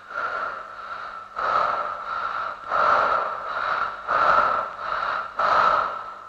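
A woman breathing heavily in a steady rhythm: a loud gasping breath about every second and a half, with softer breaths between.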